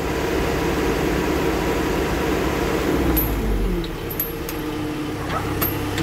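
Log loader's engine running under load, its pitch dipping about three seconds in and rising again near the end, with a few sharp clicks.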